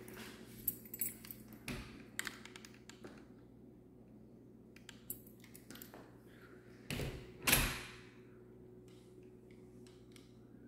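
Light taps and clicks of footsteps on a hardwood floor and of a handheld camera being moved, over a steady low hum, with one louder noise about seven seconds in.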